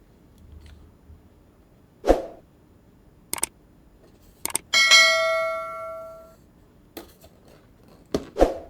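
A few sharp knocks, then a single bell-like ring about halfway through that dies away over a second and a half, and two more knocks near the end.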